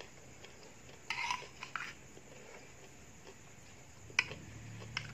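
Metal spoon and fork scraping and tapping on a plastic plate as food is scooped up: a short scraping run about a second in, then two sharp clicks near the end.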